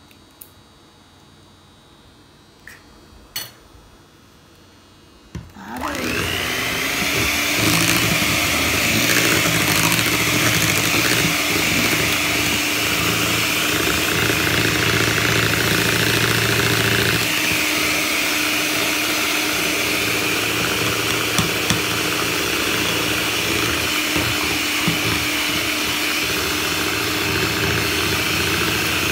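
A few light knocks, then about five and a half seconds in a Hamilton Beach electric hand mixer starts with a rising whine and runs steadily, its beaters churning thick sweet potato pie batter with eggs. Its tone shifts slightly a little past halfway.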